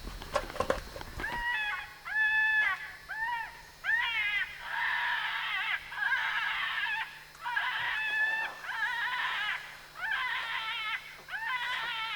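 Electronic predator caller playing a recorded animal distress sound: a string of high, wavering whining cries, each about half a second to a second long, with short gaps between them. A few knocks in the first second or so.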